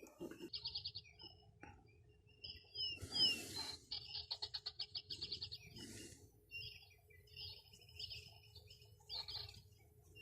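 Birds chirping in quick trills of rapidly repeated notes and short swooping calls, with two brief rustling hisses, about three and six seconds in.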